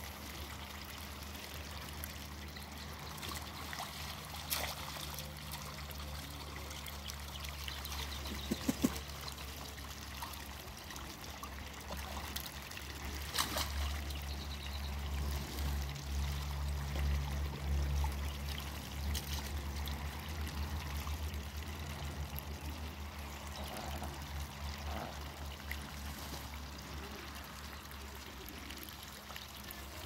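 Water trickling and splashing as Muscovy ducks dabble with their bills in a shallow muddy puddle, with scattered small clicks and splashes. A steady low hum runs underneath and grows louder for a few seconds past the middle.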